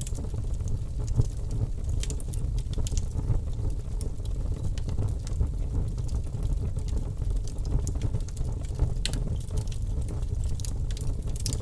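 Wood fire in a fireplace crackling: scattered sharp pops and snaps over a steady low rumble of the flames, with a few louder pops near the end.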